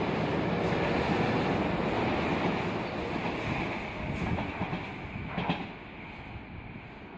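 Running noise of a Tobu 50070 series electric train heard from inside the passenger car. The wheel rumble dies down over the second half as the train slows, with one sharp clack about five and a half seconds in.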